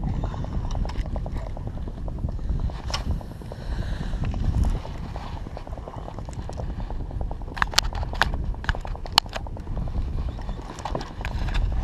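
Spinning reel being cranked, its gears giving a fast rhythmic clicking, over a low rumble of wind and water. Several sharp clicks or knocks come about eight to nine seconds in, and more near the end.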